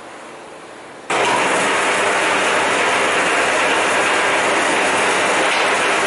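Electric wire stripping machine switched on about a second in: its motor and gear-driven rollers run with a loud, steady mechanical noise.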